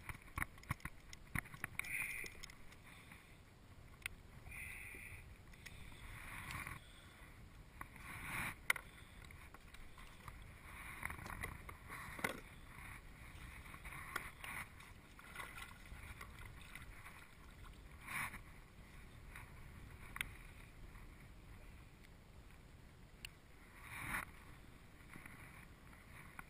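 Small waves lapping against a plastic sit-on-top kayak's hull, with scattered clicks, knocks and rustles as a fish stringer and gear are handled on board.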